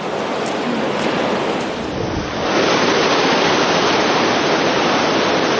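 Waterfall roaring, a steady rush of falling water that gets louder about two and a half seconds in.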